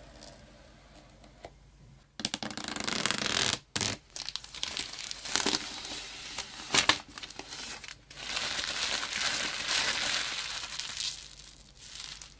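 Smartphone packaging being handled, crinkling and tearing in several noisy bursts that begin about two seconds in, with one sharp crack a little past halfway, dying away shortly before the end.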